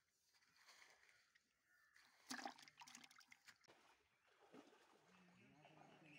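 Very faint outdoor sound with water splashing and sloshing, and a brief louder burst of splashing and scraping about two seconds in.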